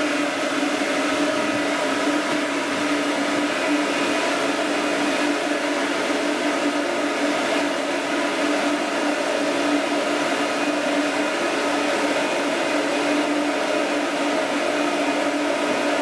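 Pet grooming blower dryer running steadily, blowing air through its hose nozzle onto a dog's wet coat: a constant motor hum over an even rush of air.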